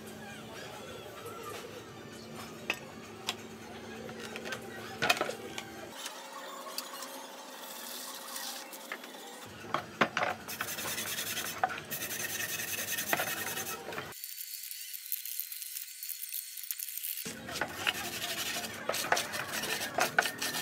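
Rusty steel rake head being scrubbed in a tray of soapy water: scratchy scrubbing and rubbing against the metal, with a few knocks as the rake is handled about five seconds in.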